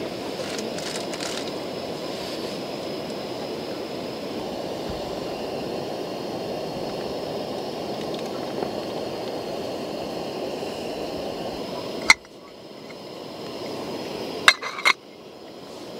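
A camping gas stove burner hisses steadily under a small aluminium cook pot. There is a sharp clink about twelve seconds in, and two quick metal clinks near the end as the lid is set on the pot. The hiss drops out briefly after each clink.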